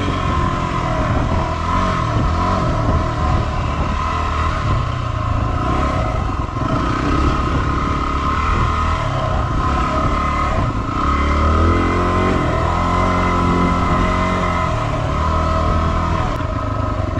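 Yamaha WR250R's 250 cc single-cylinder four-stroke engine running under way on a sandy dirt track, its pitch rising and falling with the throttle.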